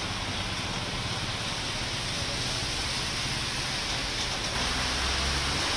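Heavy rain falling steadily, with the hiss of traffic on a wet road and the low rumble of a vehicle passing near the end.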